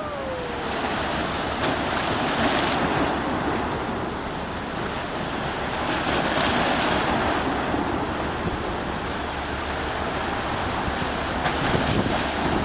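Sea waves washing onto the shore, swelling twice as waves come in. Wind rumbles on the microphone underneath.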